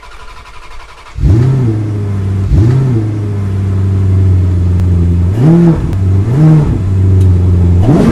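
Car engine idling, with a quick throttle blip about a second in and four more, each a short rise and fall in pitch, between steady running.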